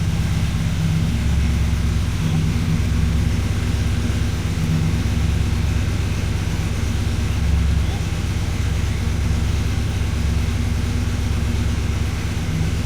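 A car engine idling steadily, an even low rumble.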